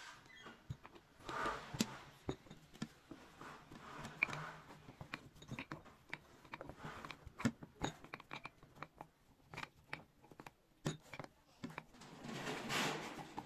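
Wooden spoon pressing spiced cucumber pickle pieces down tightly in a glass jar to leave no air gaps: irregular clicks and taps of wood against glass, with scraping and crunching of the pieces in a few longer spells.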